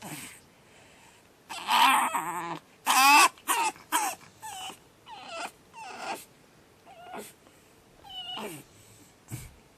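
Pug puppy screaming: one long, loud scream about a second and a half in, then a run of shorter cries and whines that rise and fall in pitch and grow fainter.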